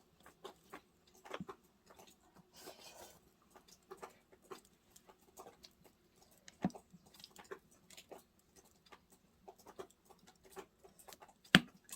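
Wood fire crackling quietly: irregular small snaps and pops from burning firewood, with a louder pop a little before seven seconds and another near the end.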